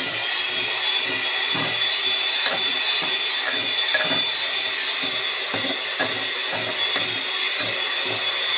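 Handheld electric mixer running steadily, its beaters creaming butter and sugar in a glass bowl. A few sharp clicks come from the beaters knocking against the glass.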